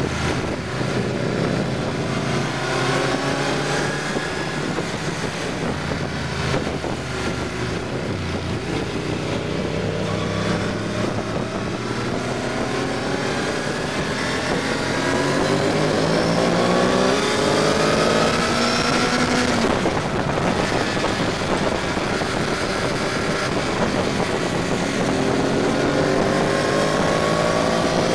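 Motorcycle engine heard from the rider's seat while under way. Its pitch climbs and drops again and again as it pulls through the gears, with the longest rise about two-thirds of the way through, breaking off at a gear change.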